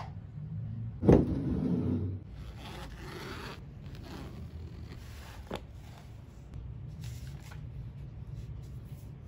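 A thump about a second in, then the zipper of a zip-around leather Quran cover being drawn open, followed by pages being handled, with a sharp click partway through. A low steady hum runs underneath.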